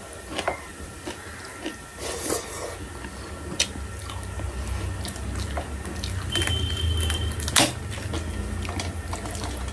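Close-miked eating: wet chewing, mouth smacks and slurps, with fingers mixing rice on a plate and small sharp clicks throughout. A brief high steady tone sounds about two-thirds of the way in.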